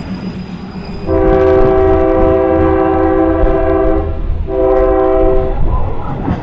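Train horn sounded twice, a long blast of about three seconds and then a shorter one, over the low rumble of a running train.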